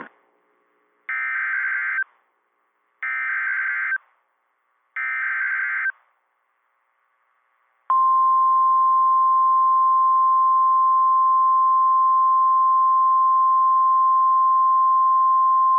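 Emergency Alert System SAME header on NOAA Weather Radio: three short bursts of screeching digital data tones about a second apart, then, about eight seconds in, the steady 1050 Hz Weather Radio warning alarm tone, which holds on unbroken. Together they signal that a new warning message is about to be read.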